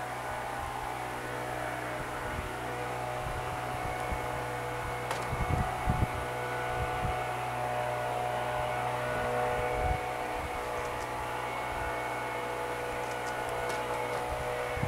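Steady droning hum of honeybees flying around an opened nuc box, disturbed while their frames are lifted out. There are a few low thumps around five to six seconds in and again at about ten seconds.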